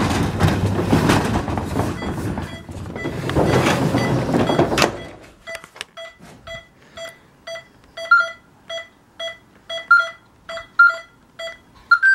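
Rustling and clattering of movement for about five seconds. Then an Optima burglar alarm keypad beeps about twice a second: the entry-delay warning tone after the set alarm has been entered. A few louder, sharper beeps come near the end.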